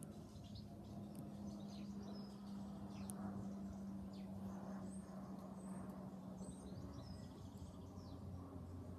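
Small birds chirping with scattered short, high calls, faint, over a steady low hum.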